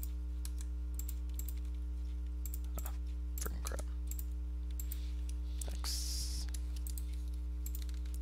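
Computer keyboard keys and mouse buttons clicking at irregular intervals, over a steady low electrical hum, with a short hiss about six seconds in.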